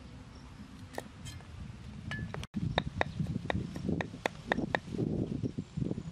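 Knife chopping garlic on a wooden chopping board: scattered knocks at first, then, after a brief break about two and a half seconds in, quick regular knocks at about four a second as the garlic is minced.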